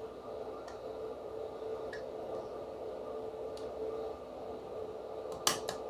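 Light clicks from handling laptop parts while the SSD's fragile cable connector is being fitted: a few faint ticks, then two sharper clicks near the end, over a steady faint hum.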